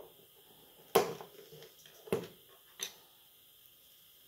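Three sharp clicks and taps, the loudest about a second in, from a small screwdriver and small metal phone parts knocking against the smartphone's frame and the work table during disassembly.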